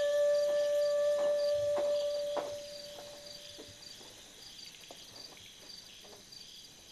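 A held flute note from the film's music fades out over the first few seconds. Under it runs a night chorus of crickets chirping in short, evenly spaced pulses, with a few faint knocks in the first half.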